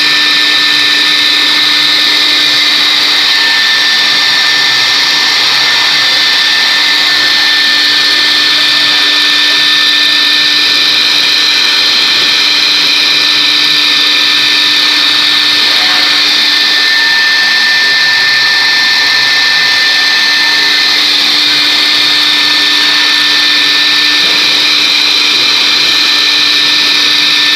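Spindle of a 4-axis CNC router running at high speed while its bit carves a white foam block: a steady high whine over a constant hiss of cutting.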